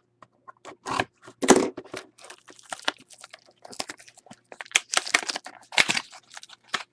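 A cardboard trading-card box being slit open with a box cutter and its cardboard torn open by hand: a run of irregular ripping and crinkling, loudest about a second and a half in and again around five to six seconds in.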